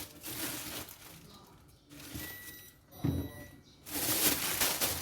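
Plastic rustling and crinkling as produce is handled. A steady high electronic tone sounds for about a second and a half in the middle.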